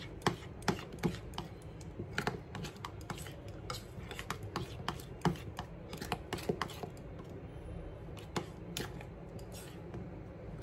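A spoon stirring thick melted chocolate in a glass bowl, clicking and scraping against the glass in quick, irregular taps.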